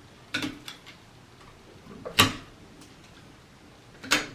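Three sharp clicks and knocks of hand tools and wiring parts being handled, the loudest about two seconds in.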